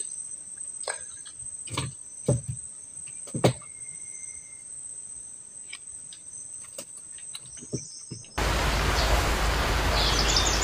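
Steady high-pitched insect drone with a few scattered knocks, the loudest about three and a half seconds in. About eight seconds in it cuts abruptly to a loud, even hiss with short high bird chirps over it.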